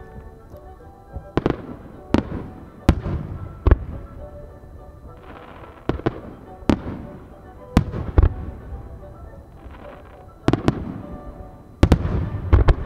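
Aerial firework shells bursting: about a dozen sharp bangs at uneven intervals of roughly a second, each trailing off in an echo, over background music.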